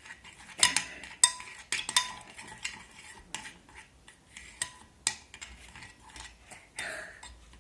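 A utensil stirring homemade slime (glue mixed with activator) in a bowl, clinking irregularly against the bowl's sides. The mixture is still lumpy, like scrambled egg, and has not yet come together.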